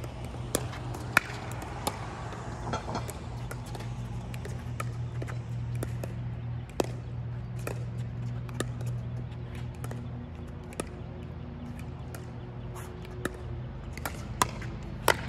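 Pickleball paddles hitting a hard plastic ball during a long rally, a string of sharp pops about once a second, with the ball ticking off the hard court between hits. A steady low hum runs underneath.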